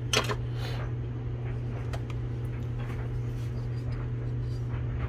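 A steady low hum in the room, with a short clatter of light metal knocks near the start as the aluminium cylinder head is handled on the bench, then a few faint ticks.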